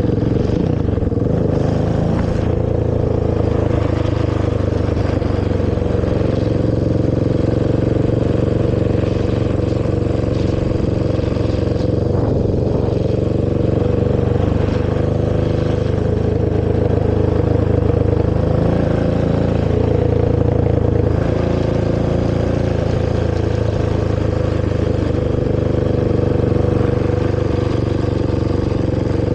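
Honda TRX450R quad's single-cylinder four-stroke engine running through its stock exhaust while riding, at a fairly steady pitch with mild rises and falls in speed.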